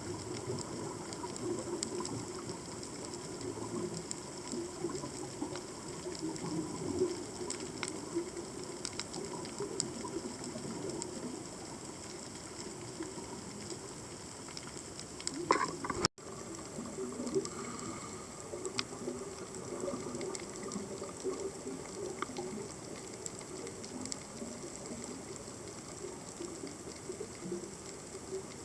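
Underwater ambience picked up by a submerged camera: a steady low rush of moving water with many scattered sharp clicks and crackles. A louder surge comes about halfway through, followed by a split-second dropout.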